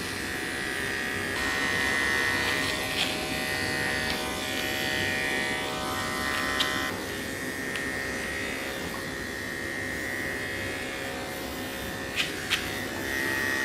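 Electric dog-grooming clippers running with a steady buzz while clipping a puppy's coat. The hum thickens for a few seconds in the first half, and there are two sharp clicks near the end.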